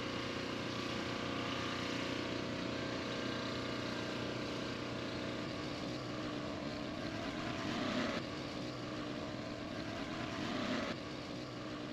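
Boat engine running steadily under way, a hum of several steady tones over a haze of wind noise.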